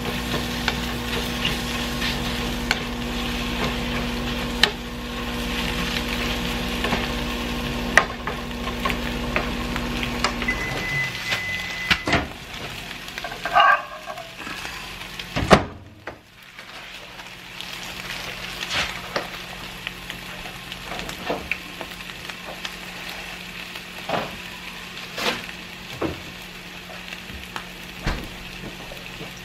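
Scrambled eggs sizzling in a nonstick frying pan, stirred and scraped with a wooden spoon. A microwave oven hums until about a third of the way in, then stops with a short high beep; a sharp click follows a few seconds later.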